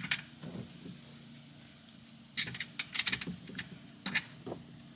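Short metallic clicks and rattles as a drain tube's fitting is pushed onto a Stahlbus oil drain valve on a truck's oil pan and twisted a quarter turn to seat it and open the valve's ball. A cluster of clicks comes a little over two seconds in, with another near the end.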